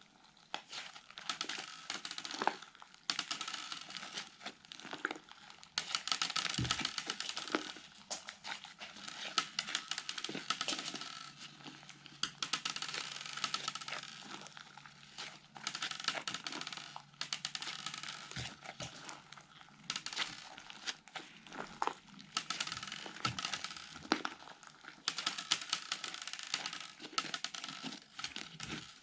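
Fluffy slime being kneaded, stretched and squeezed by hand, making sticky crackling and crinkling sounds in uneven bursts.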